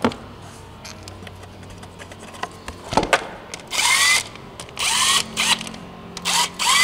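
Cordless power tool running the 8 mm oil filter cover bolts in on an ATV engine, in several short spins of about half a second, each with a rising whine. A knock comes about three seconds in.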